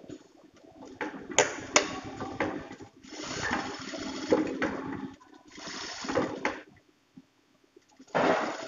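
Juki single-needle industrial lockstitch sewing machine running a topstitch in short runs of one to two seconds, starting and stopping four times, with a couple of sharp clicks near the start of the first run and a faint steady hum underneath.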